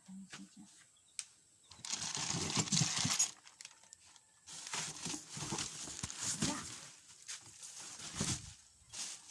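Handling noise from the unboxed chainsaw kit: rustling packaging and light metal clinking of the tools and chain, in irregular bursts.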